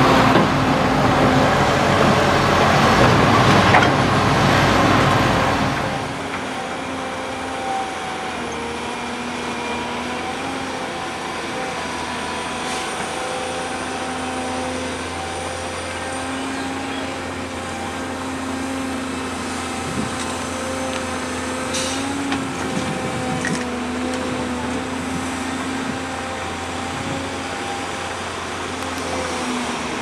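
Diesel excavators at work. For about the first six seconds a Liebherr excavator and dump trucks make loud, rough machinery noise; then, after a sudden change, a Volvo crawler excavator's engine runs steadily under digging load, with a couple of sharp knocks a little past the middle.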